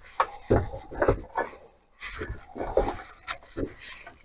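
Combination pliers gripping and scraping on a worn steel chainsaw bar stud as it is twisted out of the crankcase: a string of irregular clicks and rasps, with a short pause about halfway through.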